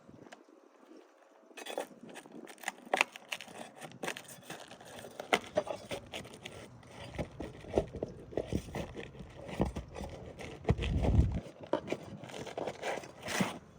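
Asphalt roof shingles being pried and scraped loose with a flat shingle bar, in irregular crackling and scraping strokes as the old shingle is worked free and its nails pull through. There is a brief low rumble about eleven seconds in.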